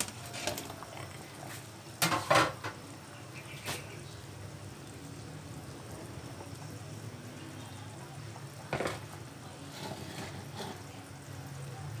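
Pot of vegetable and fish soup boiling steadily on a gas burner, with a few sharp knocks against the pot, loudest about two seconds in, as okra goes into the pot.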